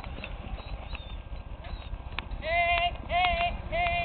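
Horse's hooves faintly clip-clopping on arena dirt, followed from about halfway in by four short, high calls of the same pitch, evenly spaced about half a second apart.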